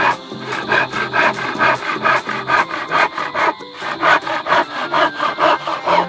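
Handsaw cutting through a board of old timber, a steady back-and-forth of rasping strokes about two a second, with a brief break about three and a half seconds in.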